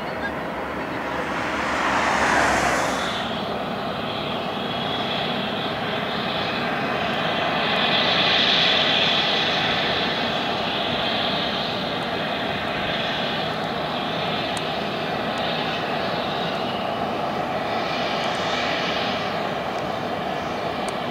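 Twin jet engines of an Airbus narrow-body airliner on final approach, a steady rumble with a high whine that swells about eight seconds in and again near the end as the plane nears the runway. A brief rushing noise comes about two seconds in.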